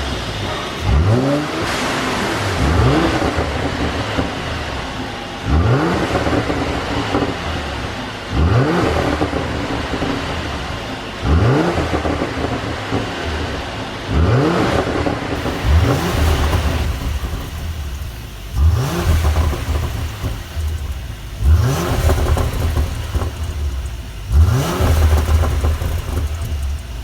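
A 2018 Mercedes-Benz E400 4MATIC's twin-turbo V6, tuned for overrun pops, blipped about ten times, a rev roughly every three seconds, with popping and crackling from the exhaust as the revs drop back. The low rumble between revs grows heavier after about the middle.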